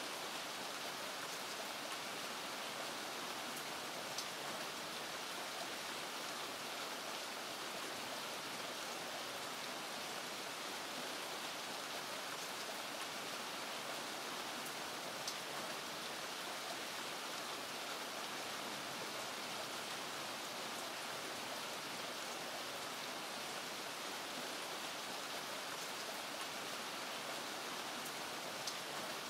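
Medium rain falling steadily in an alley, an even hiss. A few single sharp ticks stand out above it now and then.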